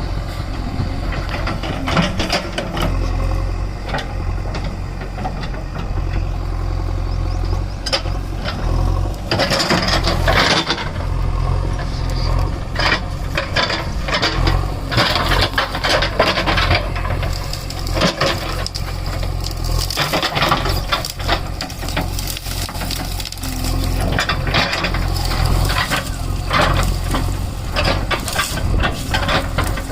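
Backhoe loader's diesel engine running steadily, with frequent clanks and rattles of the working bucket and arm.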